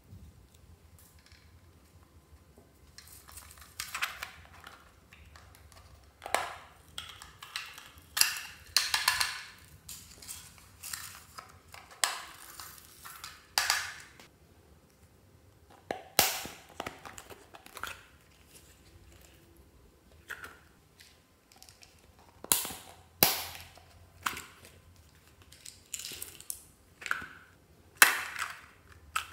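Small plastic containers being handled and clicked open and shut, with sequins shaken out onto slime: an uneven series of sharp clicks and snaps between short rattling rustles.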